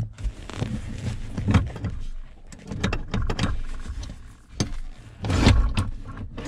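A car seat being slid back along its metal floor rails and worked out of them: a series of metal clunks, knocks and scraping from the seat's slider and bracket, loudest about a second and a half in and again near the end.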